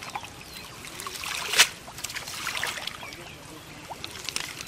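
Shallow pond water splashing and trickling as a bamboo-framed hand net is pushed and lifted through floating weeds, with one sharp, louder splash about one and a half seconds in.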